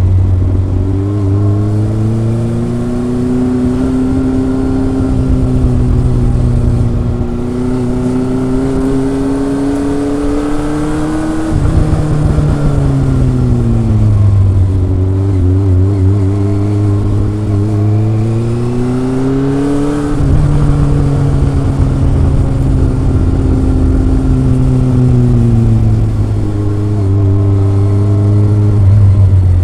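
Kawasaki ZRX inline-four motorcycle engine and exhaust under way: the revs climb steadily in a long pull, drop sharply about eleven seconds in, climb again, then ease down about twenty seconds in and hold fairly steady.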